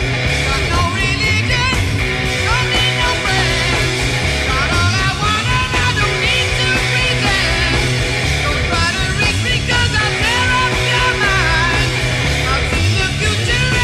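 Rock music with a driving band accompaniment and a singing voice.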